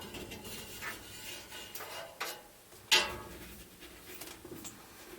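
Plastic parts of a drum furnace humidifier being handled and taken apart by hand: scattered clicks and knocks over rubbing and scraping, with the sharpest knock about three seconds in.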